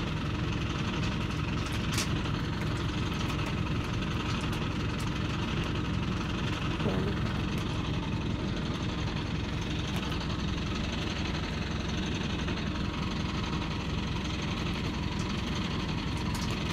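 Engine of the machine holding up a steel rebar cage, running steadily at idle, with a few faint clicks.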